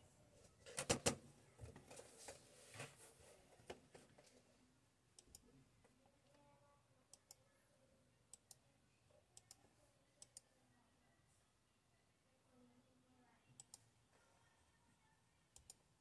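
Faint clicking of a laptop being worked by keyboard and touchpad. The strongest is a cluster of quick clicks about a second in, with a few more over the next three seconds, then single or paired clicks every second or two.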